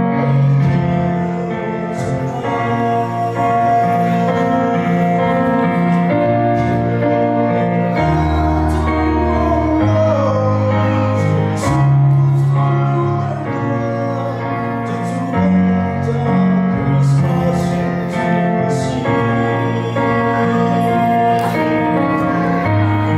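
A man singing a Christmas song solo into a handheld microphone, holding long notes over an instrumental accompaniment with a moving bass line.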